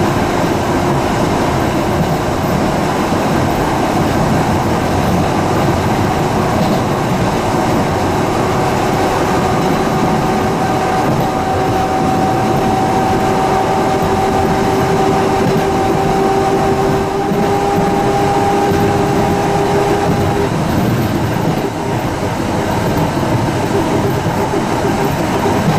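Blackpool Twin Car tram running along the track, heard from inside the passenger saloon: steady wheel-and-rail noise with a whine that rises slowly and cuts off about 20 seconds in.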